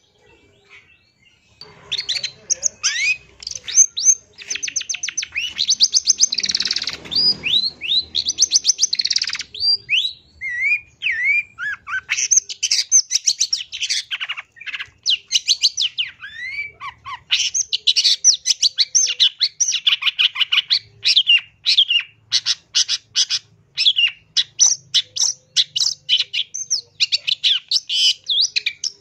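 Long-tailed shrike singing a fast, varied song of harsh chattering notes mixed with short sweeping whistles, starting about two seconds in and going on almost without pause.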